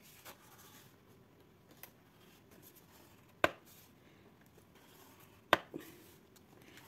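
Two sharp clicks about two seconds apart, a scoring tool knocking on a plastic scoring board while score lines are pressed into a card, with faint handling sounds between.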